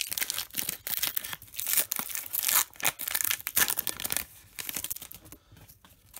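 Foil wrapper of a Pokémon trading-card booster pack being torn open and crinkled in the hands, a dense crackling. About four seconds in the crackling gives way to softer rustling as the cards are drawn out and handled.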